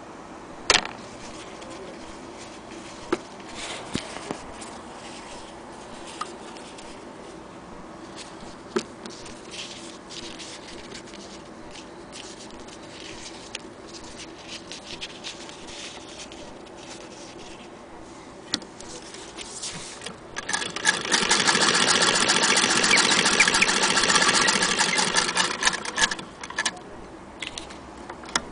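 Hand-cranked Singer Model 28K vibrating-shuttle sewing machine stitching through denim for about six seconds, starting about two-thirds of the way in and stopping abruptly. Before that, scattered clicks and handling noises as the fabric is set under the presser foot.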